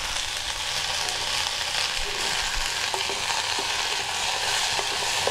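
Mint leaves and shallots sizzling in hot oil in a metal kadai as they are sautéed, with a steel spoon stirring and lightly scraping the pan a few times.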